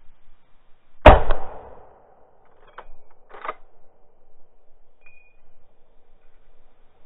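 A hunting rifle fires once about a second in, a sharp report that echoes briefly. About two seconds later come two short metallic clicks, the rifle's action being worked for the next shot.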